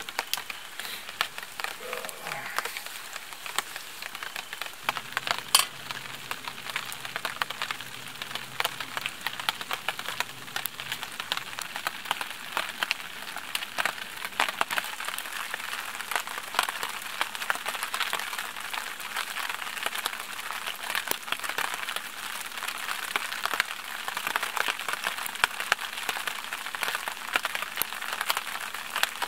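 Steady rain pattering, a dense crackle of drops, with one sharper tick about five and a half seconds in.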